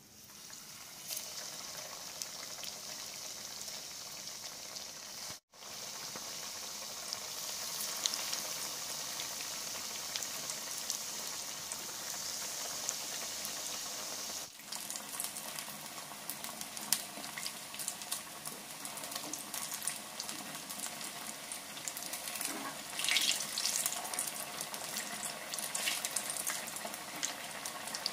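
Breadcrumb-coated vegetable patties shallow-frying in hot oil in a pan: a steady sizzle that starts as the first patty goes in. From about halfway on, the sizzle crackles and pops more sharply.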